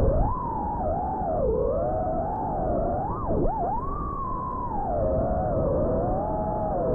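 FPV quadcopter's electric motors whining, the pitch sliding up and down as the throttle changes. Several close tones from the separate motors run together over a low rumble.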